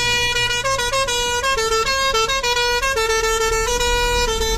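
A bus's musical horn playing a tune, stepping back and forth between a few notes, over the low hum of the bus engine.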